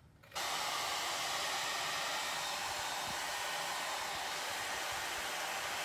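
Handheld hair dryer blowing steadily, starting abruptly about half a second in. It is heating the double-sided tape residue on the bumper to soften it so it peels off.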